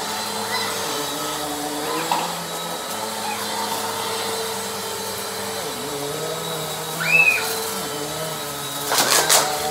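Bissell PowerForce Compact upright vacuum running steadily while being pushed back and forth over a shag rug, its motor hum stepping slightly up and down in pitch. A brief high squeal comes about seven seconds in, and a quick cluster of knocks near the end.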